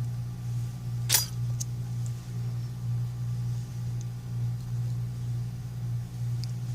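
A steady low hum with one sharp click about a second in and a few faint ticks after it, from small tools and parts being handled while an iPhone 5c is put back together.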